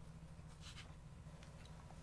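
Near silence over a low steady hum, with a few faint short rustles from trading cards being handled.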